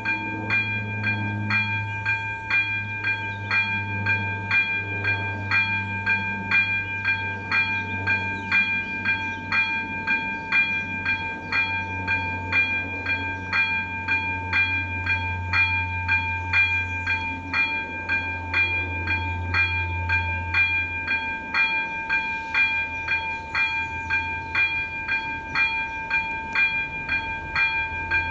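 Level-crossing warning bell (AŽD ZV-02 electronic bell on an AŽD 97 signal) ringing a steady, evenly repeated ding at about two strikes a second, the warning that a train is approaching. A low hum runs underneath and fades out about two-thirds of the way through.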